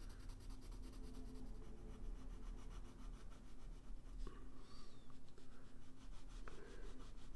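Faint scratching of a blue pencil shading on paper, building up dark tone.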